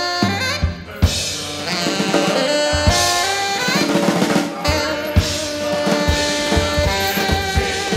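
Live jazz band playing: a drum kit struck busily, with snare and kick, under held pitched tones from tenor saxophone and keyboard.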